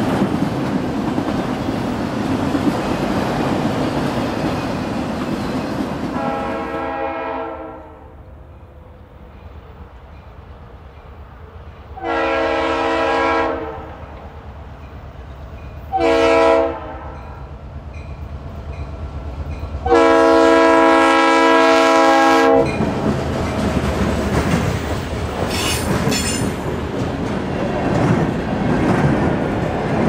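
Leslie RS3L three-chime locomotive air horn sounding the grade-crossing signal: long, long, short, long, each blast a smooth low chord. A freight train then rolls past with its wheels clicking over the rail joints.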